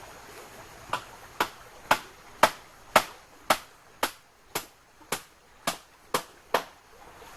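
Steady hammering, about a dozen sharp knocks roughly two a second, starting about a second in, as something is driven down.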